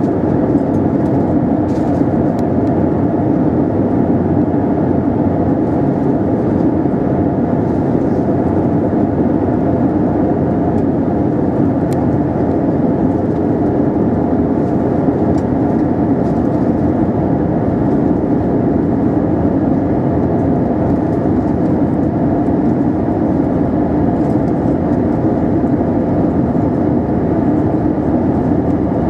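Steady cabin noise inside an Airbus A320-232 airliner on approach: the even hum of its engines and the air rushing past the fuselage, with a few faint ticks.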